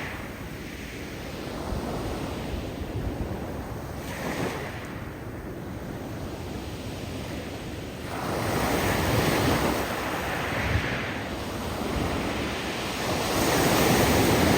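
Surf breaking on a steep shelf of loose beach stones, with the hiss of rocks tumbling in the backwash as each wave recedes. A calmer stretch gives way to a larger wave surging in about halfway through, and another near the end.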